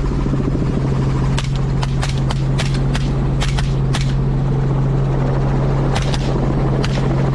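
Rifle fired from a helicopter in a rapid string of about a dozen shots, then two or three more near the end, over the steady drone of the helicopter's rotor and engine.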